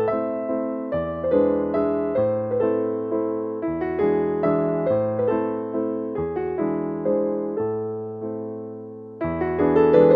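Background music: an electric piano playing a gentle melody of separate struck notes over a slow-changing bass.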